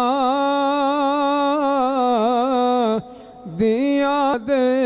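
A man singing a Punjabi naat unaccompanied, holding one long note with a slight waver for about three seconds, breaking off briefly for breath, then singing on.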